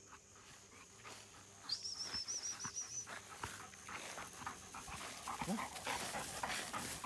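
A dog panting rapidly, with a high warbling tone lasting about a second near the start.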